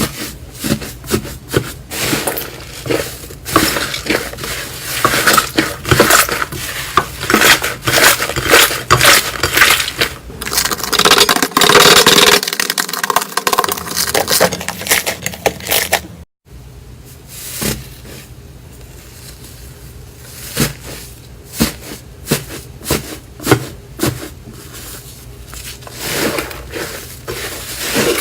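A knife cutting and carving dry bar soap, with a dense run of crisp scraping and crumbling crackles. About sixteen seconds in the sound cuts off abruptly, then sparser, sharper cuts and clicks follow.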